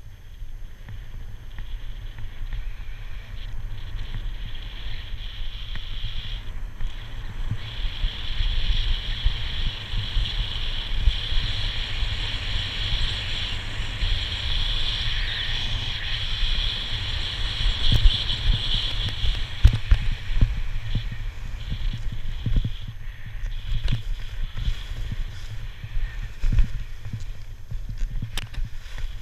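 Edges scraping and hissing over groomed piste snow during a fast descent, with wind buffeting the body-worn camera's microphone as a steady low rumble. The scraping hiss grows louder about eight seconds in, and a few sharp knocks from bumps in the snow come in the second half.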